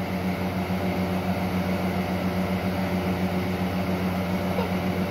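Steady low hum of a running machine.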